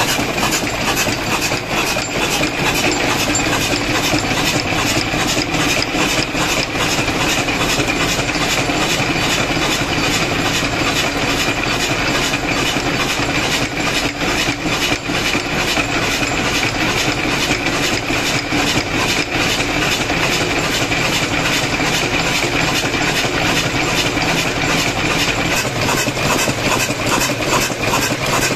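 Brons stationary diesel engine running steadily, with a fast, even mechanical beat from its firing and valve gear.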